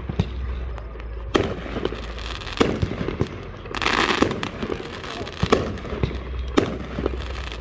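Aerial firework shells bursting overhead: four loud bangs at uneven intervals, with a short crackling rush about four seconds in as crackling stars go off.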